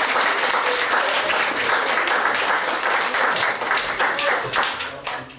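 Audience applauding, a dense clapping that thins out and dies away near the end.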